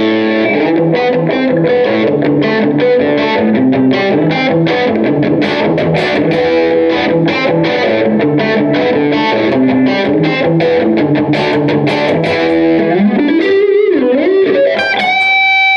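James Tyler Variax JTV-69 electric guitar through a Line 6 Spider Valve MKII on its crunchy, overdriven Crunch Blue amp model, playing a fast single-note lead line. Near the end a string bend swoops up and down, then one high note is held and sustains.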